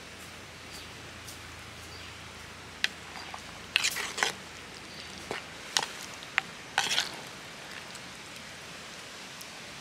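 Wooden spoon knocking and scraping against a clay pot while a liquid curry is stirred: a cluster of sharp clicks and short scrapes from about three to seven seconds in, over a steady hiss.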